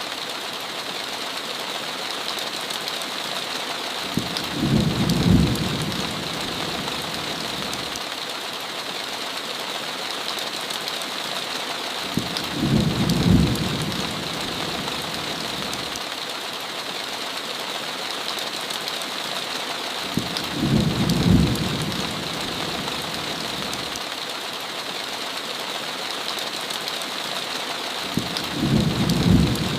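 Heavy rain falling steadily on a window, with a short low rumble of thunder coming every eight seconds or so, four times.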